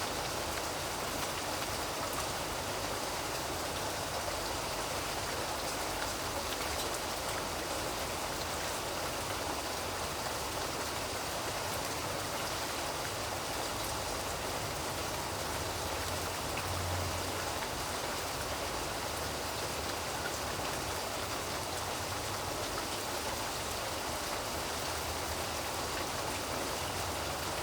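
Steady rain falling and pattering on surfaces, an even, unbroken hiss of drops.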